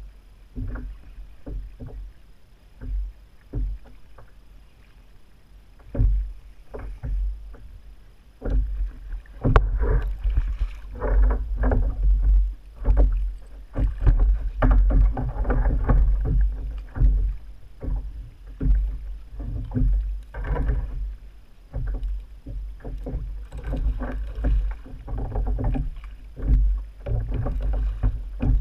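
A hooked fish thrashing and splashing at the surface beside a plastic fishing kayak, with knocks and bumps against the hull. It starts as scattered knocks, and the splashing turns busy and louder about ten seconds in.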